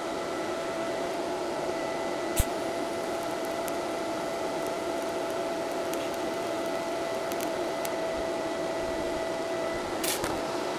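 Steady whirring hum of a cooling fan with an even hiss, and one sharp click about two and a half seconds in.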